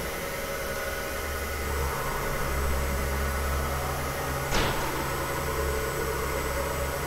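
Sharp SV-2412 vertical machining center moving its table along its axes: a steady servo-drive hum, with a second, higher hum joining about two seconds in. A single sharp click comes about halfway through.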